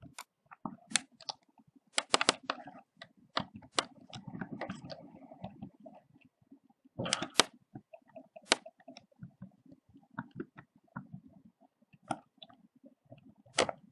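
Computer keyboard keystrokes and mouse clicks, irregular and sharp, with quick runs of clicks about two seconds in and again about seven seconds in.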